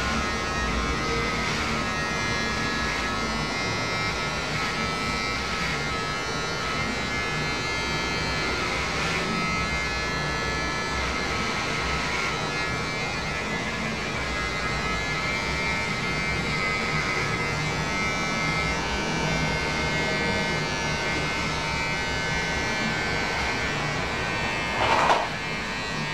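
Electric hair clipper buzzing steadily while it cuts a child's hair, with a brief louder sound near the end.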